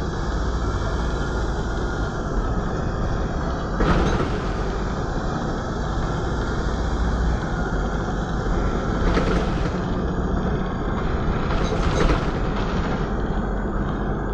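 Inside a moving Volvo B7RLE single-deck bus: steady engine and road rumble, with a faint whine that drifts up and down in pitch. Sharp rattles from the body and fittings come about four, nine and twelve seconds in.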